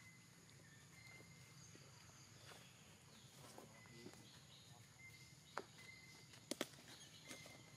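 Quiet forest ambience: a faint steady high insect hum and short, faint high tones, with a few sharp clicks or snaps, a pair of them about six and a half seconds in being the loudest.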